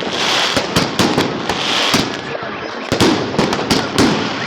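Fireworks going off in quick, irregular succession: many sharp bangs and pops over a constant crackle, with no pause.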